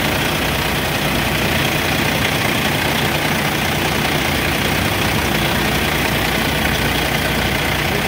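Kenworth semi truck's heavy-duty diesel engine idling steadily, a constant low rumble.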